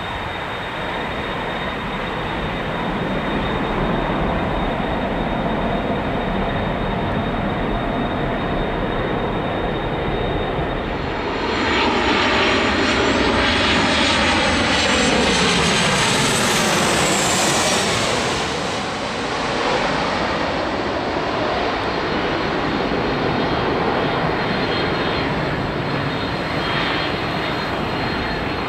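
Jet airliner engine noise throughout. About eleven seconds in, a Boeing 737 passes low overhead on approach with its gear down: it gets louder, with an engine whine that falls in pitch as it goes over, then fades back to a steady distant roar.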